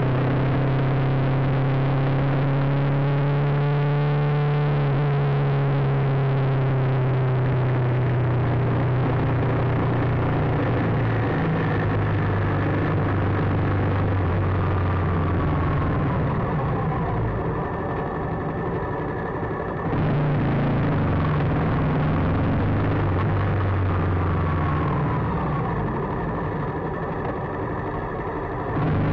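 Motorcycle engine and road noise from the pillion seat, a steady drone that drops in pitch and eases as the bike slows in traffic, then picks up again abruptly near the end.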